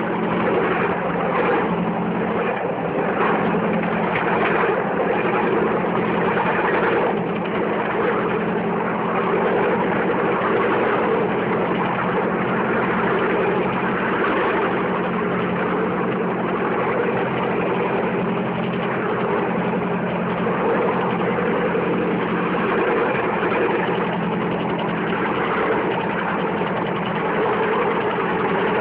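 Bamboo train's small engine running steadily as the car rolls along the rails, with the rough rattle of the ride over the track.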